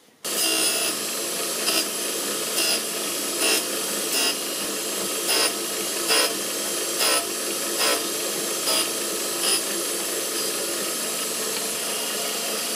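Small manual surface grinder starting up about a quarter second in, then running steadily. A short louder scrape comes roughly every 0.8 s as the table carries two mild-steel tool-post locking plates back and forth under the wheel, taking about one thou per pass.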